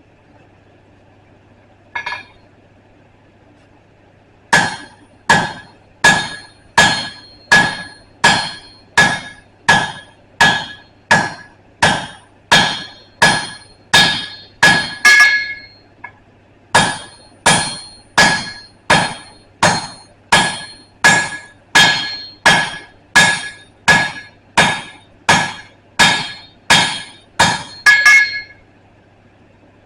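Blacksmith's hand hammer striking hot steel on an anvil while forging a punch, in a steady rhythm of a little over one blow a second, each blow with a short metallic ring. A single lighter strike comes first, then two long runs of blows with a brief pause between them.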